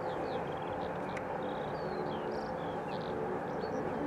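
Steady rumble of aircraft engines at an airfield, with small birds chirping over it.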